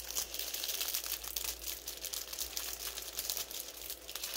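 Clear plastic packaging bag crinkling in the hands, a dense run of quick crackles, as an item is worked back into the bag.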